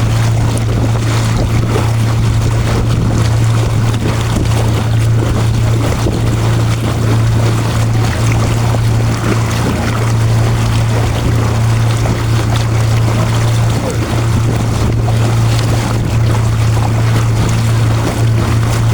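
A small boat's motor running at a steady speed: a constant low hum over the rushing of water and wind.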